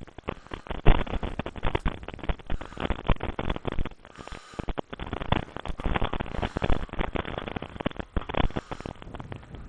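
Wind buffeting the microphone in irregular gusts, a rumbling, crackling noise that rises and falls.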